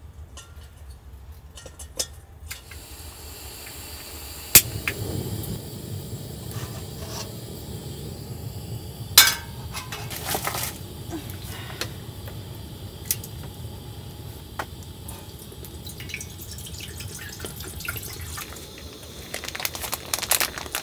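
Stainless steel camp cookware clinking and clicking, with water being poured and sloshing into a stainless pot to make a hotpot. A steady low rush starts after a sharp metal click about four and a half seconds in, and another sharp click comes about nine seconds in.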